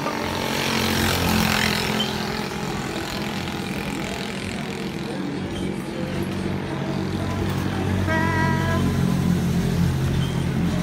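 Road traffic: vehicle engines running and passing, with a steady low hum and a louder passing swell in the first two seconds. A short steady tone sounds briefly about eight seconds in.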